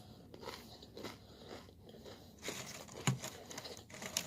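A person chewing and biting crunchy food, with irregular soft crunches and a louder crunch about three seconds in.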